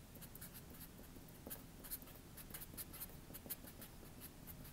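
Black Sharpie felt-tip marker writing on paper: many short, faint strokes of the tip scratching across the sheet as letters and characters are written.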